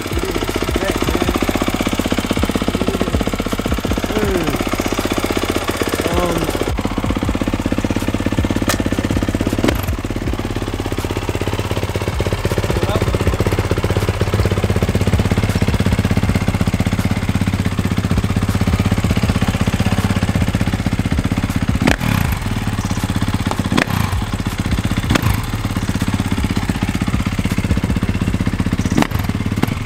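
Dirt bike engine running, its pitch rising and falling in the first few seconds and then holding steadier, with a few sharp clicks in the last third.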